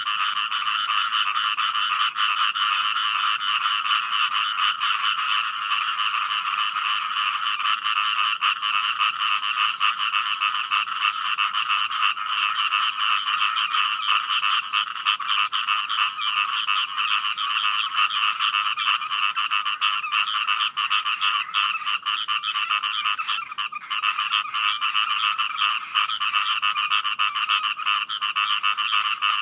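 A dense chorus of many frogs calling at once, their croaks overlapping into a steady, unbroken din.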